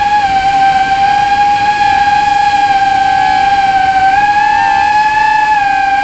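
3-inch FPV drone's brushless motors and propellers whining steadily in flight, the pitch dipping slightly and rising again with throttle changes.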